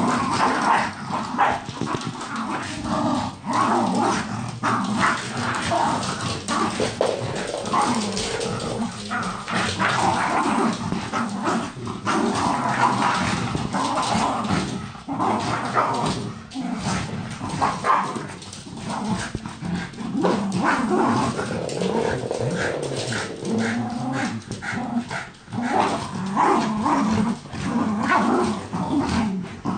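Jack Russell terriers growling and barking as they play tug-of-war with a fabric toy, a continuous rough racket with no pauses.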